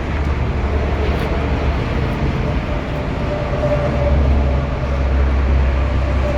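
Strong wind buffeting the microphone: a loud, steady low rumble that swells about two-thirds of the way through.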